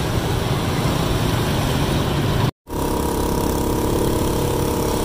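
Steady motorbike traffic noise heard from a moving motorbike, with many scooter engines running at road speed. After a brief cut-out about halfway, one underbone motorbike's engine runs steadily close by, with road noise.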